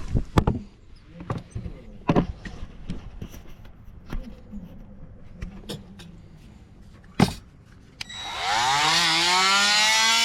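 Handling clicks and knocks, then about 8 seconds in an oscillating multi-tool switches on, its buzz rising in pitch as it spins up and then holding steady.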